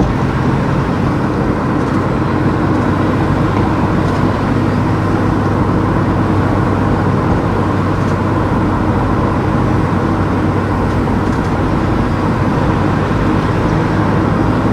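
Car driving at a steady speed: even engine and tyre-road noise with a low hum.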